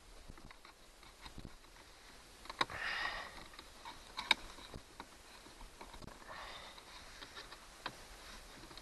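Small clicks and scrapes of a screwdriver prying at the plastic housing of a car's dashboard LCD clock. There is a short hissing sound about three seconds in and a fainter one about six and a half seconds in.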